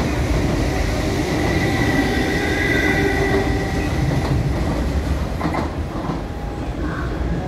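MTR mid-life-refurbished Metro-Cammell electric train running past: a steady rumble of wheels on rail with a high steady whine. It eases off slightly after about five seconds, with a few rail-joint clicks as the last cars go by.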